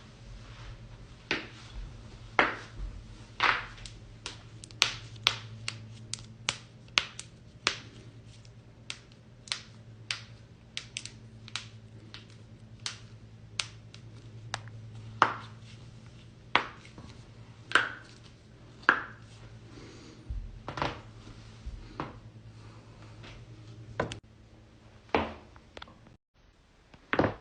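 Human joints cracking: a long run of sharp, irregular pops and clicks, thickest in the first half, over a steady low hum.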